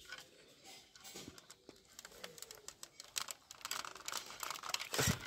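Light clicks and rattles of a plastic toy rifle being handled, coming thicker from about three seconds in, with a sharper knock near the end.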